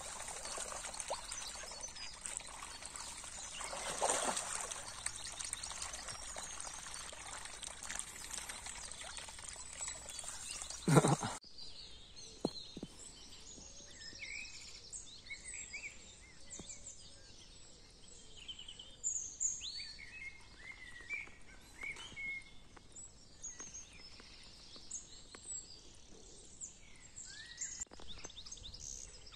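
Running river water for about the first eleven seconds, with a sudden loud burst near the end of that stretch. The sound then cuts to quieter birdsong, with many short chirps from several birds.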